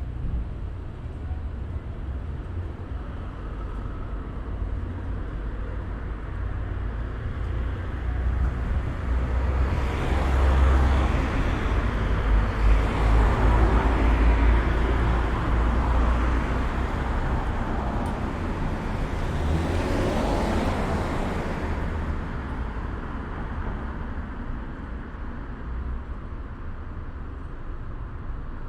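Road traffic: a steady low rumble, with passing vehicles swelling louder from about a third of the way in, peaking twice, then fading away.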